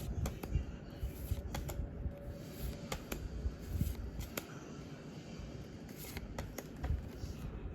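Pokémon trading cards being handled: cards sliding and flicking against one another, with scattered irregular clicks and light rustling.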